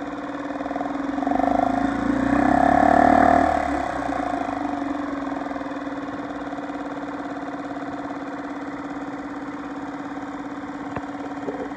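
Yamaha 2.5 hp four-stroke single-cylinder outboard running. About a second in it is revved up briefly, then revved again higher for about a second and a half, and it drops back to a steady idle.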